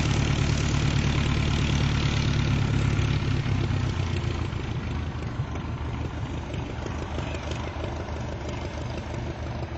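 Stampe-Vertongen SV-4 biplane's propeller engine running steadily at low taxiing power, growing fainter about four seconds in.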